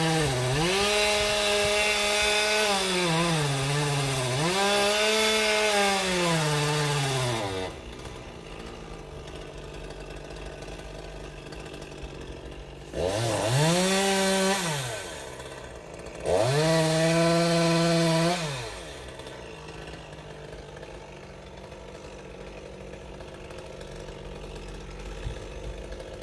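Two-stroke chainsaw run at full throttle, its pitch sagging twice, then dropping to idle about eight seconds in. It is blipped up to high revs twice more for a couple of seconds each and idles in between and to the end.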